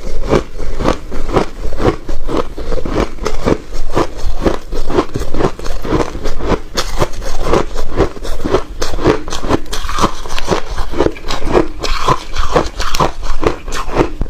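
Repeated crisp crunching, two or three crunches a second, each with a crackle.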